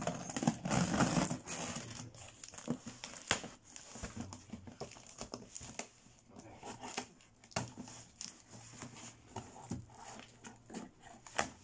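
Packing tape being torn and peeled off a cardboard box, with crinkling tape and rustling cardboard in irregular bursts, heaviest about the first second and a half and then lighter scattered crackles and snaps.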